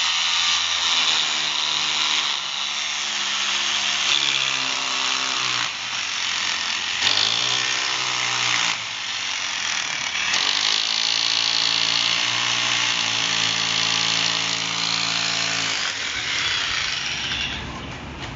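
Electric drill boring into a plastered wall. Its motor pitch sags and recovers several times as it bites, and it winds down near the end.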